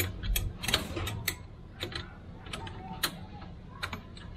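Sharp metallic clicks and taps, about a dozen at uneven spacing, from a hand tool working loose the upper fill plug on an e-bike's rear differential gearbox.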